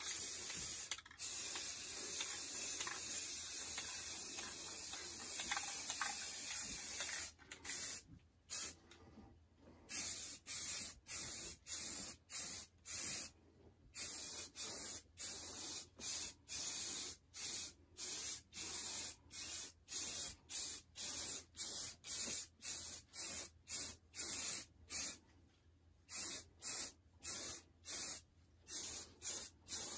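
Aerosol spray paint can spraying: one long continuous hiss for the first several seconds, then many short bursts about twice a second.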